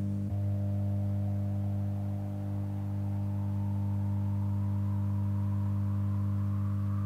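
Drone music: several steady low tones held unchanging, with a thin higher tone slowly rising in pitch above them and a single click about a third of a second in.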